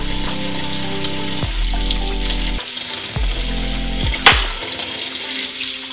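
Kitchen tap running and splashing into a stainless steel sink as a green apple is scrubbed with a bristle brush, under background music with sustained low tones and thumping beats; one sharper, louder hit comes about four seconds in.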